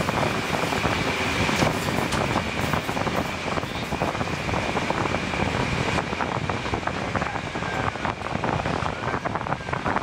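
Train hauled by a D343 diesel locomotive running along the track, heard from an open carriage window: wind rushing over the microphone over the running noise of the wheels on the rails. A steady high whine is heard for about the first two seconds.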